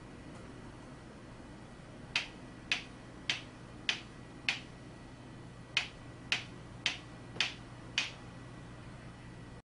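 A pen tip tapping on the tabletop ten times, about two taps a second, in two runs of five with a short pause between. These are calibration touches for sound-based touch localization, each tap picked up by microphones around the table.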